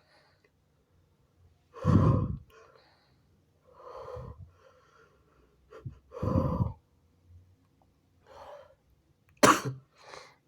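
A person stifling sneezes, with a series of short, muffled bursts of breath and voice. Loud ones come about two and six seconds in, smaller ones fall between, and a sharp, hissy burst comes near the end. The sneezes are held back, and the nose is still tickling.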